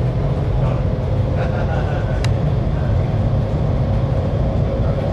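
Cabin noise of the Shanghai Maglev (Transrapid) train accelerating past about 160 km/h: a steady low rumble with a humming tone that rises slightly in pitch.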